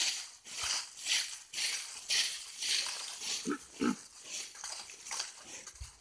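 Footsteps crunching and swishing through deep dry fallen leaves, about two steps a second. Two short low grunts come close together about halfway through.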